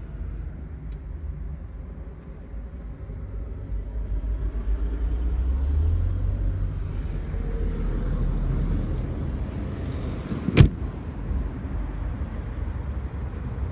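Low outdoor rumble that swells about four seconds in and stays up for several seconds, with one sharp knock about ten and a half seconds in.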